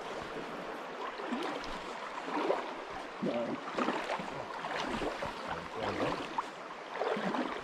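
Shallow, clear creek flowing steadily over rocks, with short, faint, irregular sounds coming and going over the running water.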